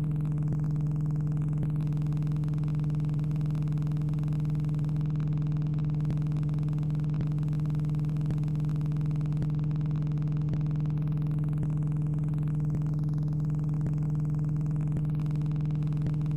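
Steady, unchanging low electrical hum: mains hum on the recording's audio track, with no sound of the truck tipping over.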